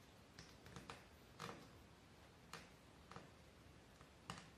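Faint, irregular ticks and light rustles of thread being wrapped around the nails of a string-art board, about six small clicks spaced unevenly.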